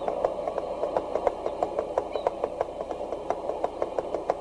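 Sound effect of a full fish net being hauled aboard on a rope: a pulley clicking steadily about four times a second over a steady hiss.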